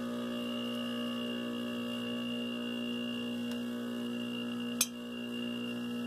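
Homemade vacuum pump built from a salvaged air-conditioning compressor, running with a steady hum. A single sharp click comes near the end.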